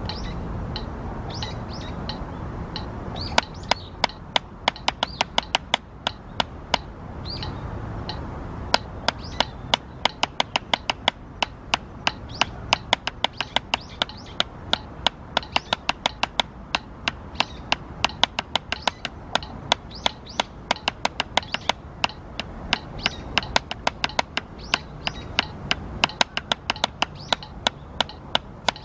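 Drumsticks striking a drum practice pad in a steady, evenly spaced run of single strokes, starting a few seconds in, stopping briefly and then resuming. Birds chirp during the first several seconds.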